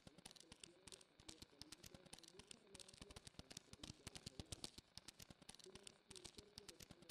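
Faint, rapid, irregular clicking, many ticks a second with short pauses: the sound-designed scuttling of a cockroach's legs.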